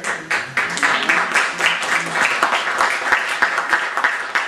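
Small audience applauding, a dense patter of many hands clapping.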